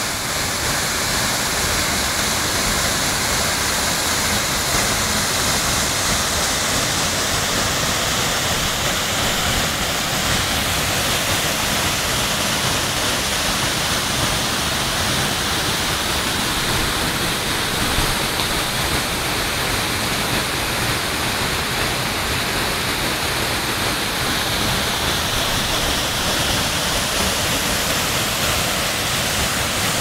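Waterfall pouring over a rock ledge: a steady rush of falling water.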